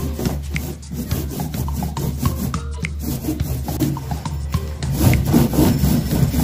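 Paintbrush scrubbing paint onto a plywood wall in quick back-and-forth strokes, about three a second, over background music.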